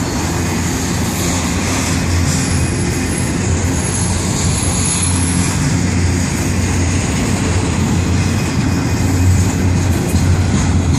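Florida East Coast Railway freight train's double-stack container well cars rolling past on the rails, a steady low rumble of wheels, with a faint high squeal for a few seconds starting about two seconds in.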